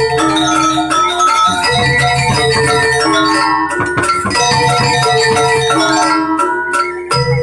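Balinese gamelan playing Barong dance music: bronze metallophones ring a repeating stepped melody over a steady low drone, with fast, sharp metallic strikes running through it.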